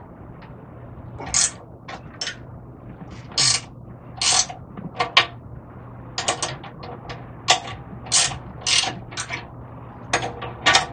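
Hand ratchet wrench clicking in short bursts, about one a second, as the bolt holding a safety chain to a fifth-wheel pin box is loosened. A faint steady low hum lies underneath.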